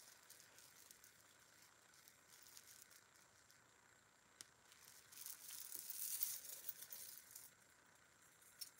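Faint rustling and light clinking of metal costume-jewelry chains being handled, swelling for a couple of seconds past the middle, with a few small clicks.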